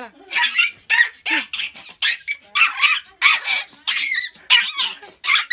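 Small fluffy puppy barking in a fast run of high-pitched yaps, about two or three a second.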